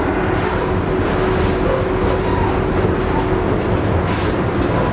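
Konstal 102N articulated tram rolling along, heard inside at the back of the car: a steady rumble of wheels on rails with a few short clacks, the sharpest about four seconds in.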